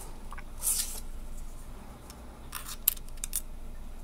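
Small metal and plastic parts of a spinning reel's body clicking and scraping as they are handled and fitted by hand: a short rasp just under a second in, then a few sharp clicks a little before the end.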